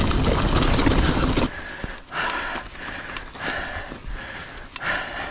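Wind buffeting the microphone over the rattle of a mountain bike on rocky ground. About a second and a half in it drops sharply to a quieter gravel climb, where a rider's hard breathing comes in short, rhythmic puffs.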